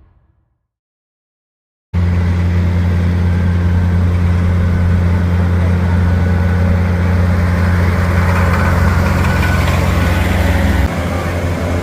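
Music fades out at the start, and after about a second and a half of silence an engine comes in abruptly about two seconds in, running steadily with a loud, low drone; near the end the deepest part of the drone drops away.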